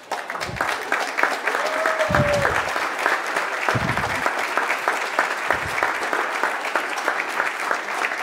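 A crowd applauding: many people clapping steadily, with a few low thumps.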